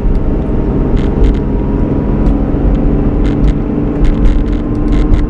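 Engine and road noise of a moving vehicle heard from inside its cabin: a steady low rumble with a constant hum, and scattered light clicks.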